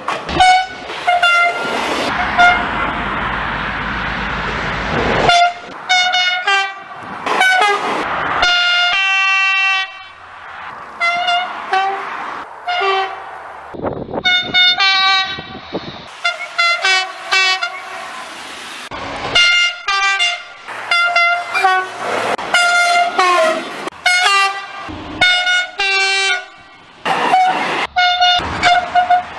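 French SNCF train horns sounding many times in quick succession, short toots and longer held blasts, clip after clip from different trains with abrupt changes between them. About two seconds in, a passing train's rumble and rail noise fill a few seconds.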